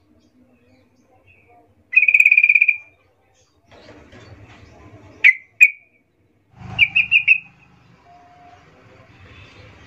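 Caged yellow-vented bulbul (trucukan) calling. First comes a buzzy trilled note about two seconds in, then two short sharp notes near the middle, then a quick run of three or four notes. A low rumble runs under the later calls.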